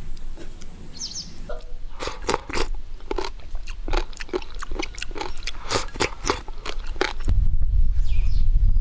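Crunchy food being bitten and chewed: a quick run of crisp crunches. A loud low rumble takes over near the end.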